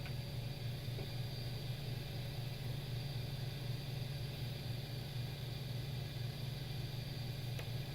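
Steady hum with an even hiss of blowing air, typical of a hot-air rework station heating a solder joint, with a few faint ticks.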